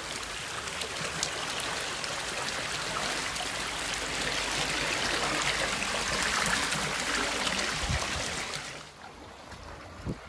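Floodwater running and splashing, a steady rushing hiss that drops away sharply about nine seconds in, leaving a quieter low rumble.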